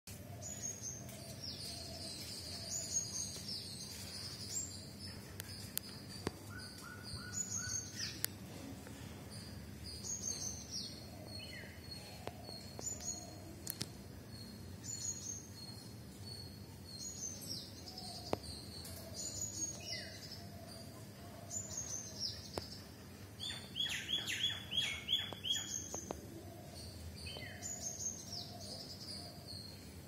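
Several small songbirds chirping: short, high, falling notes repeated in quick phrases, with a louder run of rapid descending notes a little past two-thirds through and a fainter, lower call now and then, over steady background noise.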